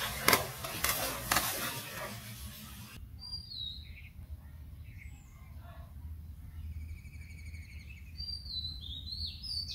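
A hooked fish thrashing at the surface of pond water, splashing repeatedly with two louder splashes in the first second and a half. About three seconds in the sound cuts abruptly to birds chirping and calling.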